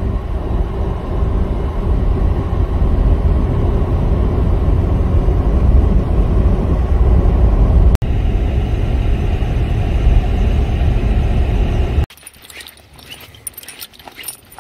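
Steady low rumble of road and engine noise heard from inside a moving car's cabin, breaking off for an instant about eight seconds in. About twelve seconds in it cuts off abruptly to a much quieter stretch of short scattered crackles and clicks.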